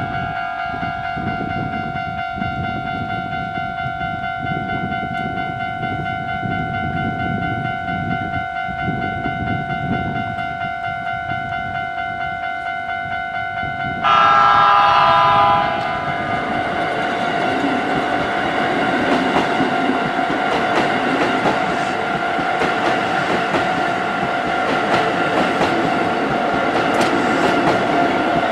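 Level crossing alarm ringing steadily as a Keisei 3700-series electric train approaches. About 14 s in, the train sounds a loud air horn (typhon) blast of about two seconds, then rolls slowly over the crossing with wheels clacking on the rail joints while the alarm keeps ringing.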